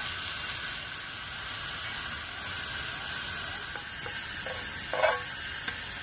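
Steady hiss of vegetables stir-frying in oil in a small pan on a portable gas stove, with a brief knock about five seconds in.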